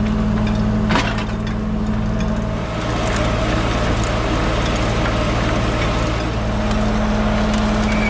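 PTO-driven sawmill blade cutting into a log, a rising hissing, crackling rasp of wood from about three seconds in, over the steady run of the tractor driving it. A single sharp knock about a second in.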